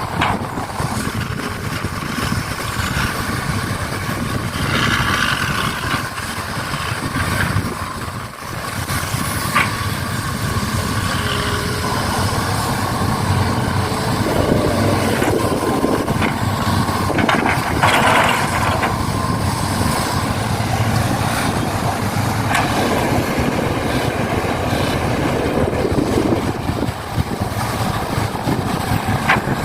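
Heavy diesel engine sound of a truck or excavator, running steadily with a few brief rises in load or revs.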